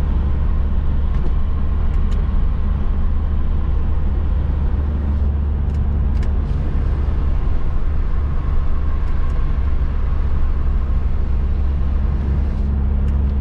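Cabin sound of a 1995 Volvo 480 Turbo driving at a steady speed: a constant low drone from its turbocharged four-cylinder engine and the road, with tyre noise over it.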